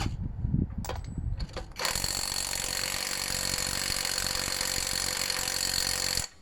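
A handful of knocks and clatter, then a cordless power tool, an impact driver or drill, runs steadily for about four seconds on 17 mm bolts with a high whine and stops abruptly near the end.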